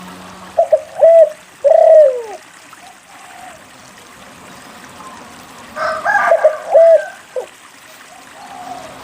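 A lively (gacor) spotted dove (derkuku) cooing: two phrases of a few deep, curving coo notes each, about four seconds apart, over a faint steady hiss.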